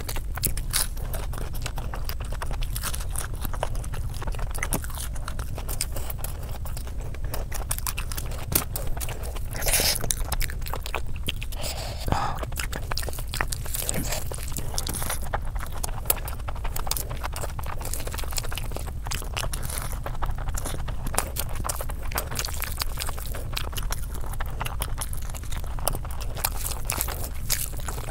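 Close-miked eating of chicken biryani: chewing and biting into chicken and rice, with moist squishing and crackling as the rice and chicken are mixed by hand, over a steady low hum.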